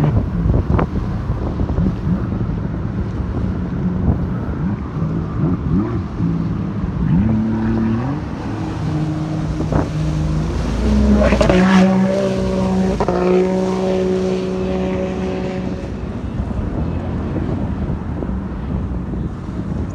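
Sea-Doo personal watercraft engines revving as the jet skis carve and spin close by, the pitch stepping up and down with the throttle. The loudest pass comes a little past halfway, with one engine note held steady for a few seconds.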